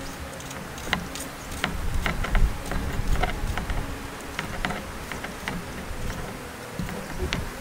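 A small knife cutting through a tomato held in the hand, with irregular sharp clicks and soft taps as the blade meets the skin and slices drop onto a stone countertop, over a low rumble.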